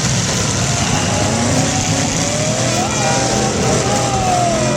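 Demolition derby cars' engines running and revving in a loud, steady din, with a wavering tone gliding up and down in the second half.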